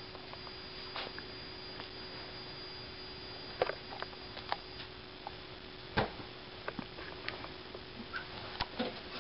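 Quiet room sounds: a low steady hum and a faint high steady tone, with the tone stopping about five seconds in as a CRT television is switched off. Scattered soft clicks and knocks of someone moving about and handling the set, the sharpest about six seconds in.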